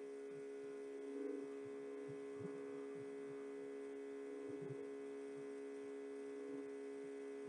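Faint steady electrical hum made of a few fixed tones, with soft low pulses now and then.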